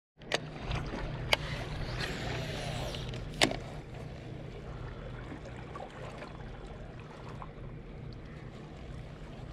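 Handling of a baitcasting rod and reel during a retrieve, with three sharp clicks in the first few seconds, over a steady low rumble.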